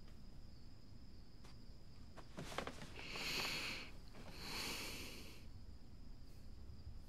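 Two slow breaths from a person lying in bed, each about a second long, the first about three seconds in and the second near the middle, over a faint steady chirring of crickets.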